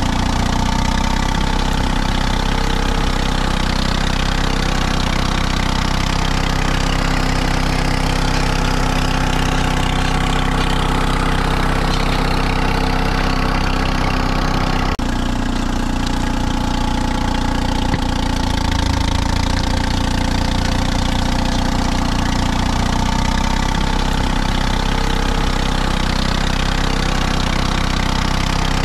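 Allis-Chalmers HD5 bulldozer's two-cylinder, two-stroke Detroit Diesel 2-71 running steadily as the dozer works, with the distinctive Detroit two-stroke sound. The sound shifts abruptly about halfway through.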